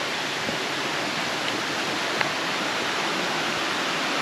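Steady rush of stream water cascading over rocks, with a few faint ticks.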